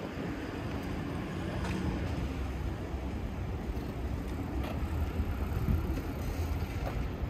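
City street traffic ambience: a steady low rumble of road vehicles, with a few faint clicks.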